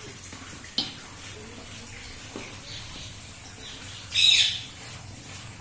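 Pet parrot giving one short, harsh squawk about four seconds in.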